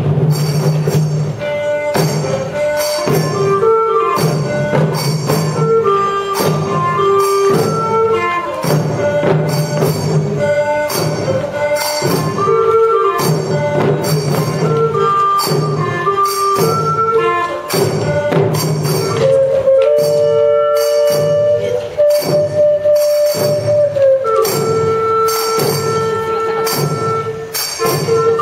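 Japanese bamboo flute (shinobue) playing a melody of held and stepping notes over taiko drums struck in a steady beat about twice a second. The flute holds one long note near the end.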